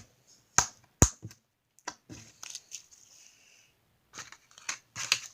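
Slime being squeezed and pulled by hand, giving sharp crackling pops and clicks in irregular bursts, the loudest about a second in.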